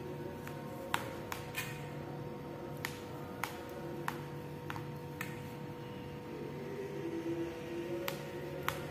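A steel knife's blade clicking against a steel plate as the set carrot burfi is cut into squares: about a dozen sharp, short clicks at irregular intervals.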